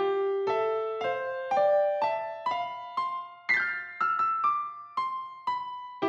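Electric piano background music: single notes struck about twice a second, each dying away, in a simple melody that climbs and then settles back.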